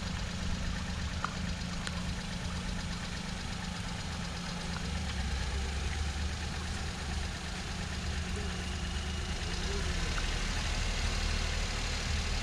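Maruti Suzuki Alto's small three-cylinder petrol engine running at low revs as the car creeps forward in first gear: a steady low hum that grows a little louder in the last few seconds.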